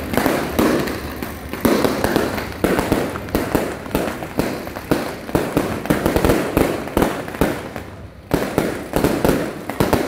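Strings of firecrackers going off: rapid, irregular loud cracks, briefly thinning out about eight seconds in before starting up again.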